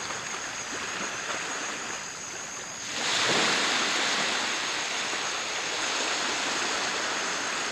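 A steady rushing noise that grows louder about three seconds in, over a thin, steady, high-pitched insect trill.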